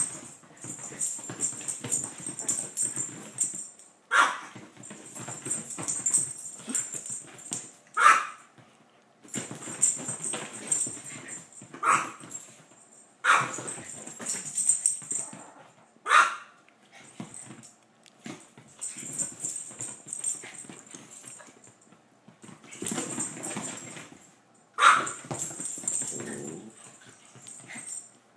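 Two dogs playing: sharp barks every few seconds, about six in all, with rustling and scuffling in between.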